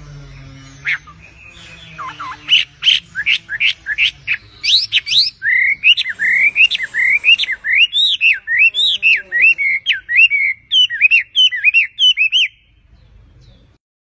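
Hwamei (Chinese melodious laughingthrush) singing loudly. Quick whistled notes build into a long run of looping, rising-and-falling whistles, about three a second, which stop abruptly near the end.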